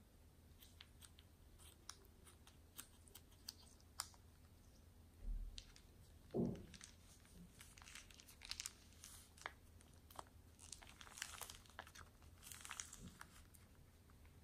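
Plastic piping bag crinkling as it is squeezed, pushing small foam beads out into glue, with scattered small clicks and crackles. Two short dull thumps about five and six and a half seconds in are the loudest sounds.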